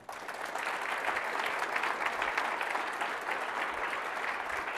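Audience applauding, a dense steady clatter of many hands clapping that breaks out at once.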